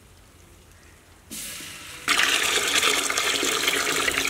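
Water poured from a brass pot into a large steel cooking pot. A lighter pour starts a little over a second in, then a loud, heavy splashing gush about two seconds in.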